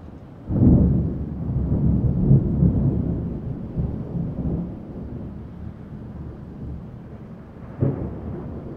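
Distant thunder: a sudden clap about half a second in that rolls into a long low rumble, slowly fading, then a second sharp clap near the end.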